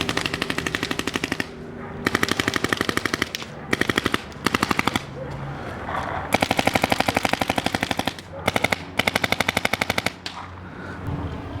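Paintball marker fed from a Dye box rotor loader firing rapid full-auto bursts, about fifteen shots a second, several bursts in a row with short pauses between them.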